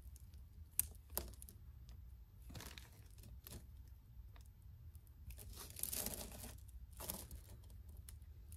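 Faint handling noise of costume jewelry: beads and metal chain clicking against each other as they are turned in the fingers, with soft rustling twice near the end.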